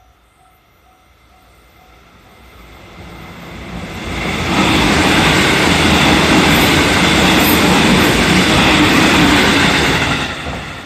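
JR 313 series electric train passing a level crossing: its rumble builds over the first few seconds, stays loud for about six seconds and falls away near the end. The crossing's warning bell rings in even, rapid pulses at first and is then drowned out by the train.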